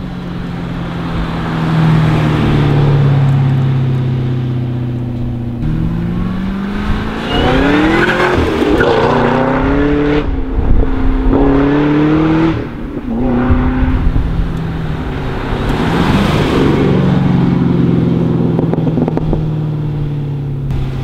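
Supercharged 6.2-litre V8 of a Cadillac CTS-V through a Corsa X-pipe and Corsa mufflers. It runs at a steady low note, then from about six seconds in accelerates hard, its pitch climbing and falling back several times as the gears change, before settling to a steady drone near the end.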